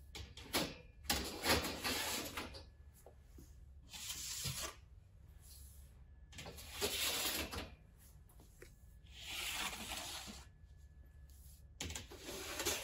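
Metal sheet trays sliding onto the stainless-steel rack runners of a combi oven as it is loaded with chicken: several scraping slides, one every two to three seconds, over a low steady hum.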